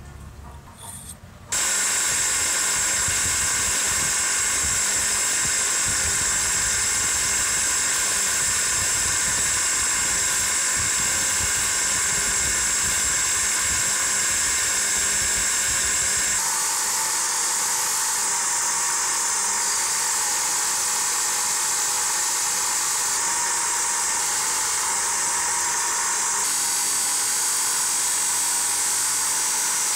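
Bench grinder running with its wheel spinning, starting suddenly about one and a half seconds in, while small metal parts of an old jigsaw are held against the wheel to clean them; the tone of the whine and hiss shifts about halfway through.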